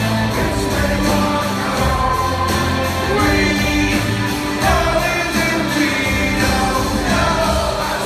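Rock band playing live with a lead singer, electric guitars and drums, heard from the audience in a large theatre hall.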